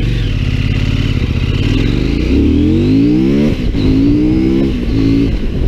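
CFMoto 800MT Explore's 799 cc parallel-twin engine under full throttle from a standstill, rising steeply in pitch through first gear. It drops on an upshift about three and a half seconds in, climbs again, and shifts up once more near the end.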